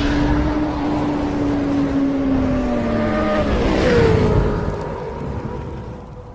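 Motorcycle-engine sound effect holding a steady pitched drone that sinks slowly in pitch, then a whoosh about four seconds in, after which the sound fades out.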